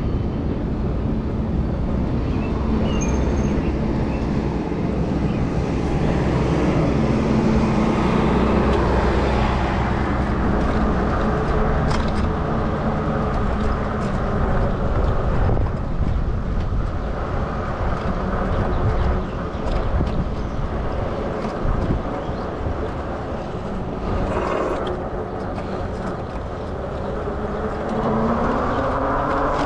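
Steady rumble of an e-bike ride: wind on the microphone and tyre noise on the trail, with a faint low hum and a few light clicks. A tone rises in pitch near the end.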